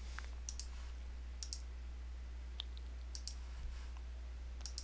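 Computer mouse clicking: a few sharp clicks, mostly in quick pairs, as lines are drawn on a charting program. A steady low hum runs underneath.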